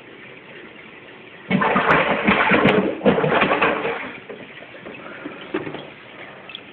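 Aquarium water splashing hard as a hand grabs a largemouth bass and the fish thrashes at the surface, in two loud bursts starting about a second and a half in, then dying down as the fish is lifted out.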